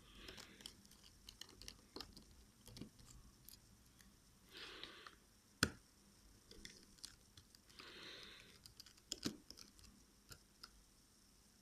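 Near silence, broken by faint scattered clicks and taps of a small screwdriver working at a phone's tiny screws and internal frame, the sharpest about halfway through and again near the end. There are also a few soft puffs of noise, each about half a second long.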